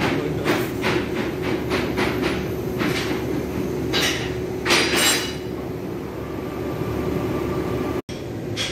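Machinery running with a steady hum and a held tone, under irregular clicks and clacks, the loudest about four and five seconds in. A second, higher steady tone comes in about six seconds in.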